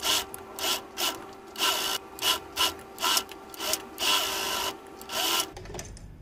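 Electric domestic sewing machine stitching in about nine short, stop-start runs as piping is sewn along a curved neckline, with a faint steady hum between runs. It stops shortly before the end.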